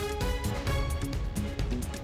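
Background music with a steady beat: the news bulletin's music bed, heard without the newsreader's voice over it.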